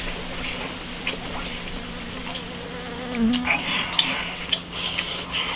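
A fly buzzing around, a faint hum whose pitch wavers, with scattered light clicks and taps in the second half.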